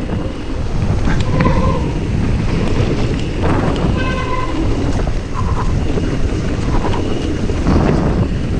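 Wind rushing over the microphone and the rolling rattle of a mountain bike descending a rough trail, with a few short high-pitched squeals now and then.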